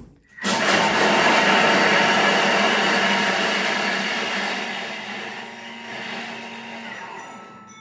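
Thermomix food processor chopping onions, garlic, carrots and courgettes at speed 6: the blade whirs loudly with the vegetable pieces rattling in the bowl, then the noise eases off as the short programme ends, with a brief beep near the end.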